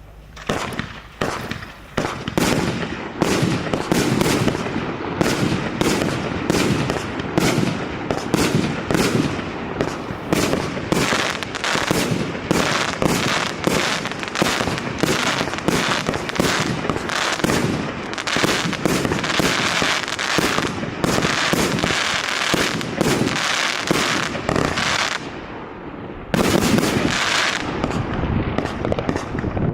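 Maxsem "Never Alone" consumer fireworks cake firing a rapid string of shots, several a second, each a sharp bang. It lulls briefly about 25 seconds in, then fires on just as densely.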